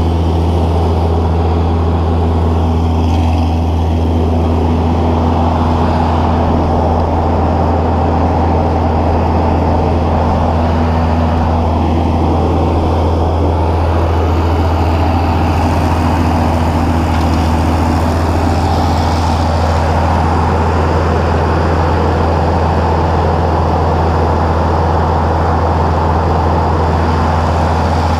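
Mobility Dipper 4x4 loader's engine running steadily right beside the microphone as the loader drives, a constant low drone with no revving.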